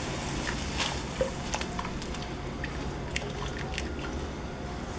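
Chopped onion and cream bubbling softly in a large pot while a silicone spatula stirs them, with light scrapes and clicks of the spatula against the pot.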